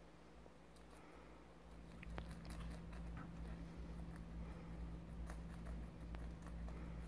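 Rabbits nibbling a crisp leaf with a thick white rib: faint, quick little crunching clicks scattered irregularly. A low steady hum comes in about two seconds in and runs underneath.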